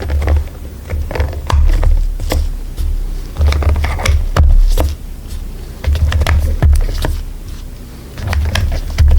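Typing on a mechanical keyboard: irregular keystroke clicks over background music with a heavy, pulsing bass beat.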